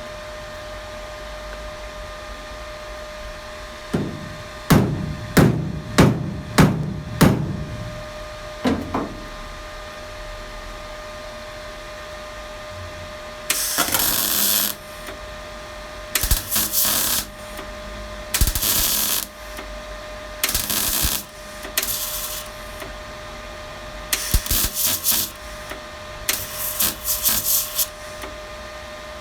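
Several sharp hammer blows on sheet-steel bodywork, then a series of short MIG-welder bursts, each about a second long with pauses between. These are tack welds holding a panel in place on a classic Mini bodyshell.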